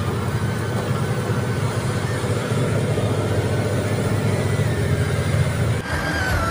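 Steady engine and road noise from inside the cab of a truck driving along a highway. Music begins near the end.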